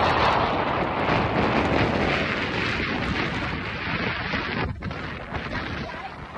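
Wind buffeting the microphone of a phone carried on a moving motorcycle, a dense rushing noise over the bike's running and road noise. It gradually fades toward the end, with a brief drop about three-quarters of the way through.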